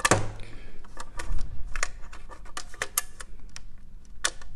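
Sharp plastic clicks and knocks from a miniature Crabtree RCBO being handled and slotted into place in a two-way Crabtree consumer unit. They come as a quick, irregular series of a dozen or so.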